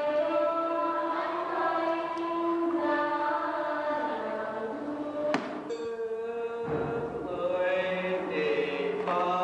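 Choir singing slowly in long held notes, with a single sharp click a little past halfway.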